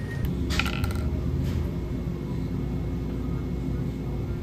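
A few light clicks and clatters of art supplies being handled on a table, about half a second in, over a steady low hum of store background noise.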